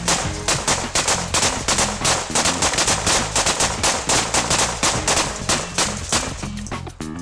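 Rapid fire from two rifles shooting together, an AK-47 (7.62×39 mm) and an M16-style rifle (5.56 mm), into a ballistic glass windshield: dense, overlapping shots, several a second, breaking off near the end.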